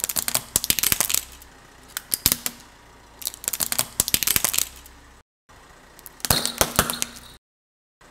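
Plastic wind-up toy chicken cracking and snapping as a car tyre rolls over it, in four bursts of sharp cracks about a second long with short pauses between. The sound cuts out abruptly twice in the second half.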